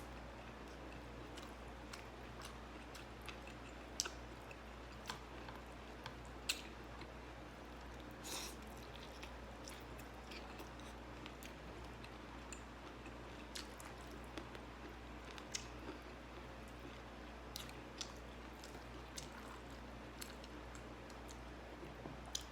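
Close-miked chewing of rice and vegetables, with irregular crunches and wet mouth clicks over a faint steady low hum.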